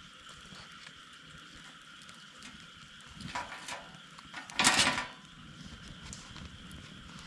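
A steady, high-pitched chorus of calling animals. A short, loud rustling scrape comes about four and a half seconds in, with fainter rustles just before it.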